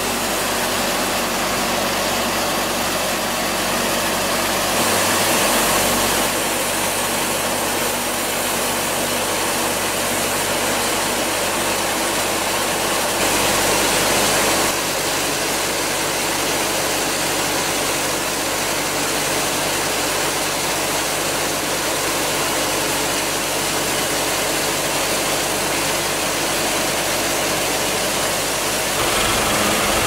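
Large band sawmill running: a steady machinery drone with a low hum. It grows louder and hissier briefly about five seconds in and again for a couple of seconds around fourteen seconds in.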